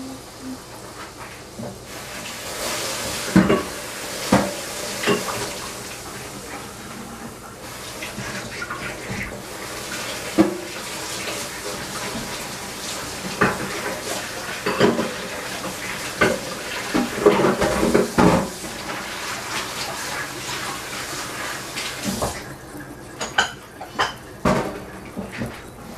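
Washing up at a kitchen sink: pots, dishes and cutlery clinking and clattering while a tap runs. The running water stops near the end, and a few more clinks follow.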